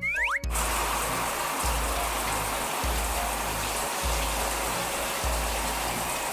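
Water spraying steadily from an overhead shower head, starting about half a second in just after a short rising whistle, over background music with a steady bass beat.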